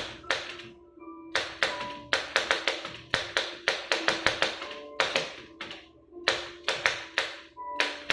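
1916 L.C. Smith No. 8 manual typewriter being typed on: irregular runs of sharp typebar strikes, several a second, with short pauses between them.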